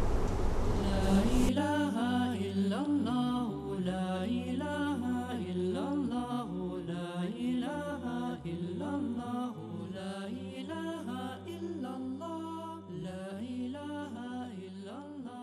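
Closing theme music: an Islamic devotional vocal chant (nasheed) over a steady low drone, starting about a second and a half in after a brief noisy swell and gradually fading out.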